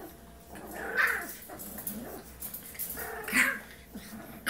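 A small puppy yipping twice in short high barks, about a second in and again about three seconds in.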